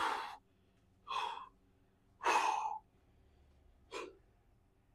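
A man breathing hard in four short, forceful exhales about a second apart, from the strain of the last reps of a dumbbell lateral-raise set.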